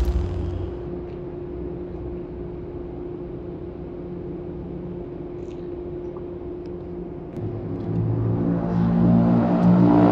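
Dark, droning film soundtrack: the tail of a boom dies away in the first second, leaving a low steady drone with one held tone. About seven and a half seconds in, a deeper chord of low synth tones swells in and grows louder.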